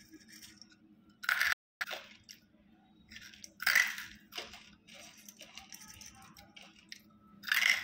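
Banslochan (chalky bamboo silica) crunching between the teeth: three loud bites, about a second and a half in, near four seconds and near the end, with softer chewing crunches between.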